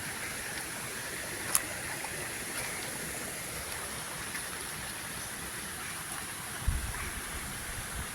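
River water flowing in a steady rush, with a single sharp click about a second and a half in and a brief low rumble near the end.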